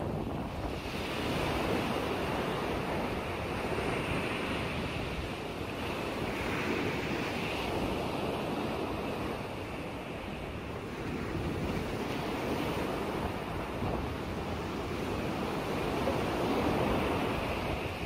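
Wind-driven waves on a large freshwater lake, choppy water washing and lapping, with wind blowing across the microphone. The sound swells and eases slowly every few seconds.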